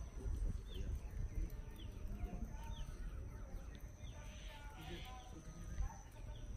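Small birds chirping in short, repeated falling calls over a steady low rumble, with a faint steady high tone running underneath.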